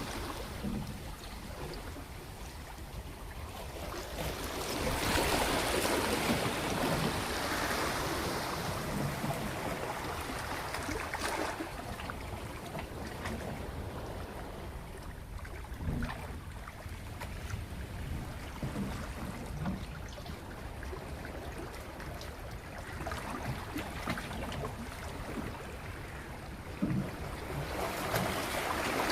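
Sea water washing and lapping in slow surges that swell and fade every few seconds, with a few dull knocks.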